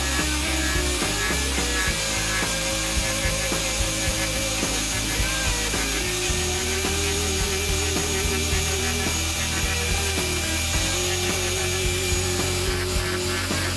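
Angle grinder fitted with an Arbortech Ball Gouge, its spinning cutter carving scallops and flutes into a wooden board: a steady grind of the cutter in the wood.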